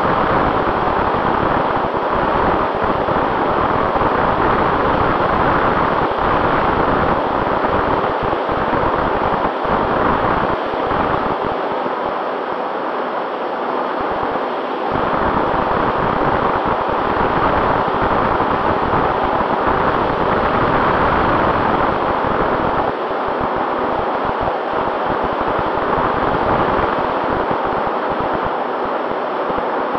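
Radio-controlled flying wing in flight, heard from on board: a steady rush of airflow over the microphone mixed with the motor and propeller, under a faint steady whine. The sound eases slightly for a few seconds in the middle.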